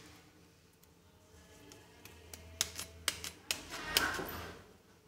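A kitchen knife scraping and cutting along a raw bamboo shoot to peel it, with the blade clicking and the fibrous skin snapping and tearing off. The clicks come in a quick irregular run from about two seconds in, loudest and densest around four seconds in.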